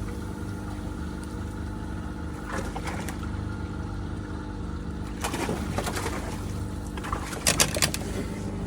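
Steady low engine hum from a fishing boat, with a few brief sharp noisy bursts over it, about two and a half, five and seven and a half seconds in.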